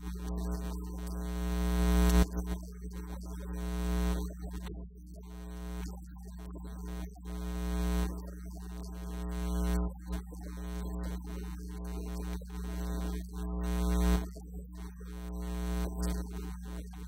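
Soft, sustained keyboard or synthesizer chords that swell and fall back every few seconds, over a steady low electrical hum.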